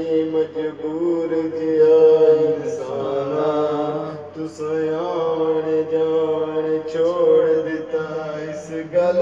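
A man singing unaccompanied in long held notes that waver in pitch.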